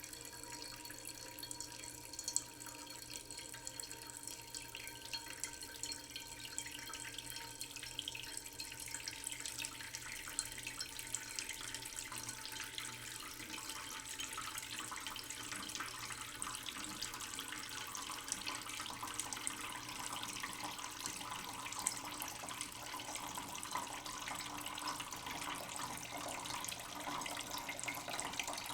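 Water running from a tap and splashing into a sink, a steady crackly rush that grows fuller as it goes on.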